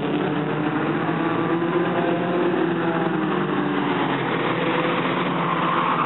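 Several dirt-track stock cars' engines running at race speed as the pack circles the oval. It is a steady blend of engine notes, with some pitches rising and falling as cars go through the turns.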